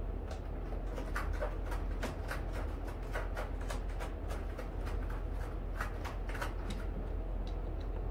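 Cat scratching a corrugated cardboard scratcher: irregular rasping strokes, a few a second, over a steady low hum.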